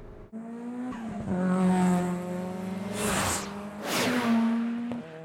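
Racing-car sound effects from a Mitsubishi Lancer Evolution III and a Mazda RX-7 FC at speed: an engine held at high revs, its pitch stepping about a second in and again near the end. Two louder rushes of tyre squeal come about a second apart in the second half.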